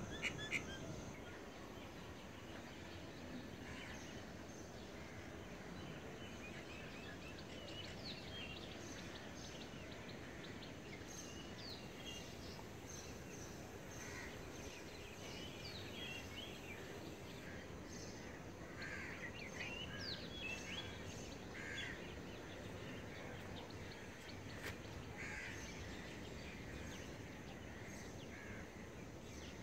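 Outdoor ambience of steady low background noise, with birds calling on and off: short chirps and a few falling whistles, busiest in the second half.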